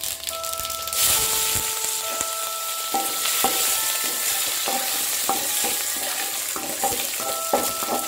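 Curry leaves and mustard seeds frying in hot oil in an aluminium pot: a sudden loud sizzle about a second in as the leaves hit the oil, then steady sizzling. A metal spatula stirs, clicking and scraping against the pot.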